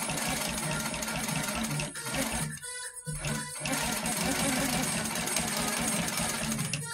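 Baby Lock Coronet longarm quilting machine stitching at speed as the quilt is guided under the needle. It stops briefly about two and a half seconds in, then runs again.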